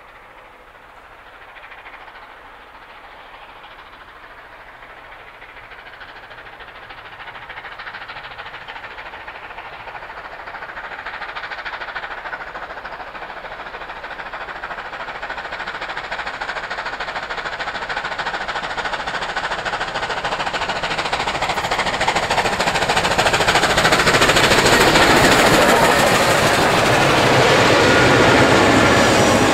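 Steam locomotive 3801, a NSW 38 class Pacific, working at speed with fast, even exhaust beats. It grows steadily louder as it approaches and is loudest as it passes near the end, with diesel locomotives and carriages rolling by behind it.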